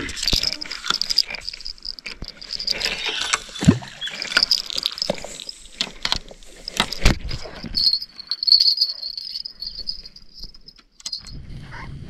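Insects chirping steadily in summer grass, with a scatter of clicks and knocks from a spinning rod and reel being handled, two of them sharper about a third and halfway through. Near the end this gives way to a low steady hiss.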